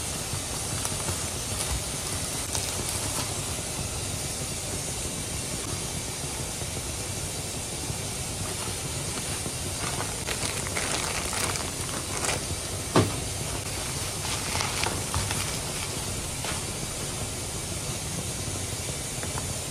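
Plastic carry bag and plastic wrapping rustling and crinkling as groceries are unpacked, busiest and sharpest in the second half, with one sharp click. A steady hiss runs underneath.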